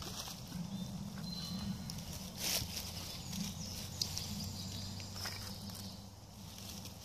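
Split kindling sticks laid one by one on a log: a few light wooden clacks, about three, over a low steady rustle.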